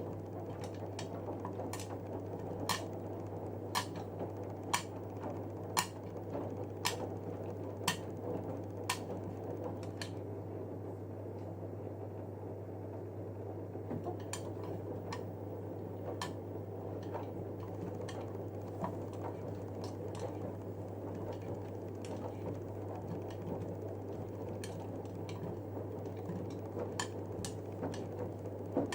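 Panasonic NA-168VX4 washing machine running in its soak stage with three winter jackets in the drum: a steady low hum with sharp mechanical clicks about once a second, which thin out to fainter, irregular clicks after about ten seconds.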